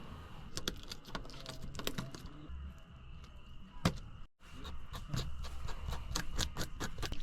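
Knife clicking and scraping while skinning and filleting crappie: a string of sharp, irregular clicks, with a louder knock about four seconds in.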